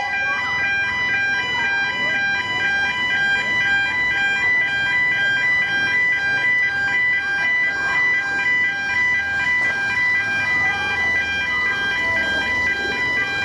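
Level crossing warning alarm sounding continuously: a high, warbling alarm of rapidly alternating tones, pulsing several times a second.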